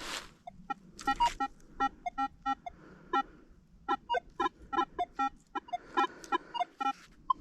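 Metal detector giving a string of short, pitched beeps as it is swept over a dug hole to recheck a target, several beeps a second at times with short gaps between.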